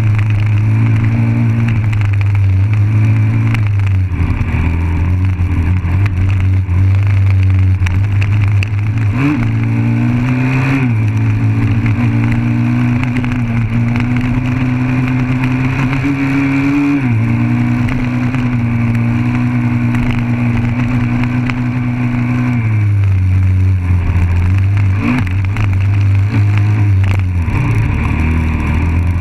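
Dirt bike engine running under load, picked up close from the bike itself, with wind and trail noise. Its pitch holds steady for long stretches and shifts with throttle and gear changes: a dip and rise about nine to eleven seconds in, and drops around seventeen and twenty-three seconds in.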